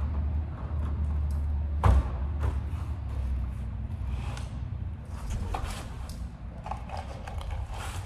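Hands working a carbon-fibre front lip spoiler being fitted to the underside of a car's bumper: one sharp knock about two seconds in, then light clicks and scrapes, over a steady low hum.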